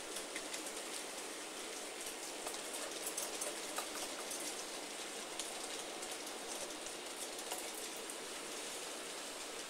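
N gauge model trains running on the layout's track: a steady hiss of small metal wheels rolling on the rails, dotted with light clicks and ticks.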